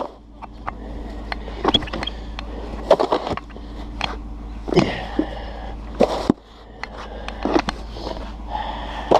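Snow shovel scraping over pavement and tossing snow, in repeated strokes about every second and a half.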